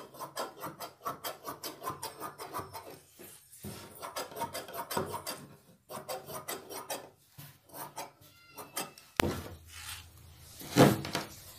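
Large tailoring scissors cutting through folded blouse-lining fabric: a quick, even run of snips, about four to five a second, for roughly the first seven seconds. After that the cut cloth is gathered and shifted, with a few louder rustles near the end.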